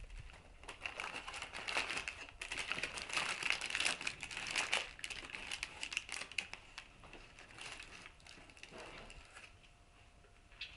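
Paper crinkling and rustling as a sandwich is unwrapped from its paper wrapping. It is busiest over the first five seconds, then grows sparser and fainter.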